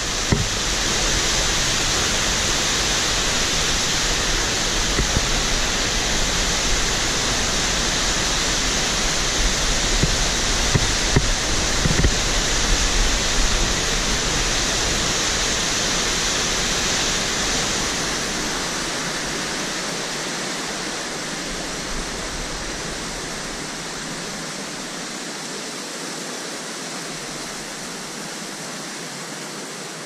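Waterfall pouring over rock ledges: a steady rush of falling water that fades gradually over the last dozen seconds.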